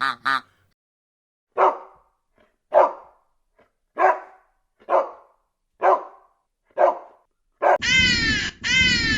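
A dog barking: six single barks spaced about a second apart. Near the end a different animal takes over with longer, harsh calls that fall in pitch.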